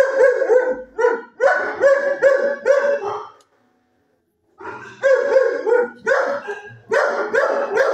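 A dog barking in quick, repeated barks, in two bouts with a pause of about a second in the middle.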